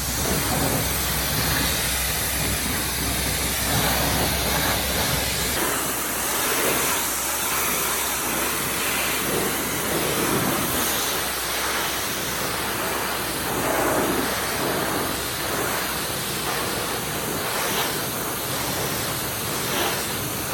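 Pressure washer spraying a steady, hissing jet of water onto a muddy ATV. The sound shifts as the spray moves over the machine, and a low steady hum underneath drops away about five seconds in.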